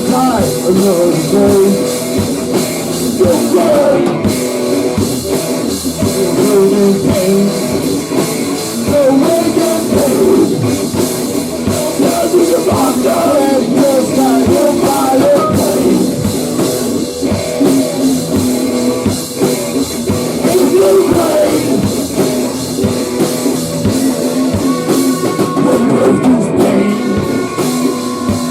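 A rock band playing loudly and steadily, with drum kit, guitar and singing.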